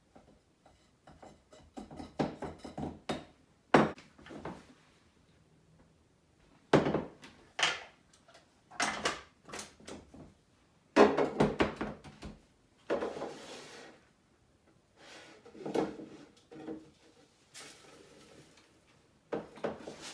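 Kitchen storage containers and lids being handled on a counter: a series of knocks and clatters. Sugar is poured into a canister in a couple of short rushing, hissing pours.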